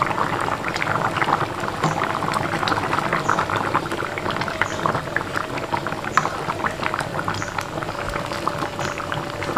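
Pot of coconut-milk fish curry with bitter melon bubbling at a steady boil, a dense crackle of small popping bubbles.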